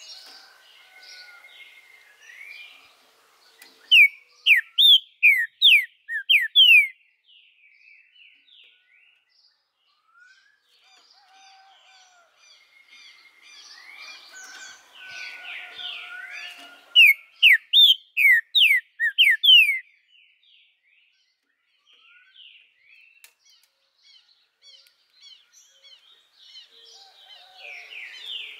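Green-winged saltator (trinca-ferro) singing: two loud runs of about eight clear, down-slurred whistled notes, the first about four seconds in and the second about seventeen seconds in, with softer chirping and twittering in between.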